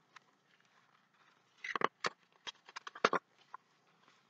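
Pages of a large paperback picture book being turned and handled: a brief click at the start, then a run of short paper rustles and clicks between about a second and a half and three seconds in.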